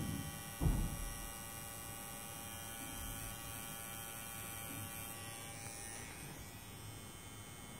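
Handheld permanent-makeup tattoo pen running with a steady electric hum, made of several held tones, as it works pigment into the eyebrow. A single low knock sounds about half a second in.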